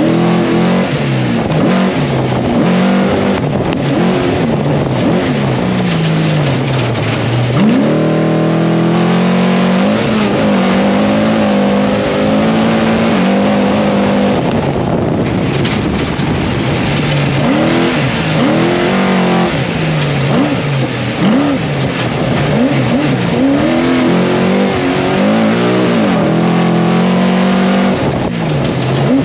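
Trophy truck's race engine heard from inside the cockpit at speed, the revs rising and falling over and over as the driver gets on and off the throttle. About eight seconds in the revs climb in one long sweep and stay high for several seconds, then go back to quick up-and-down swings.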